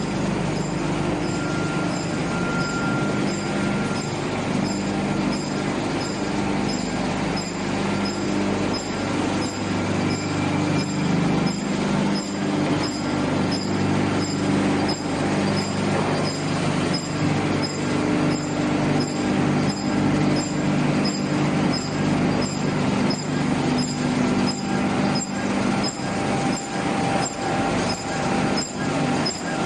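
Wood pellet production line machinery running: a steady drone of motors and conveyors, with a regular ticking of about one to two clicks a second from about a third of the way in.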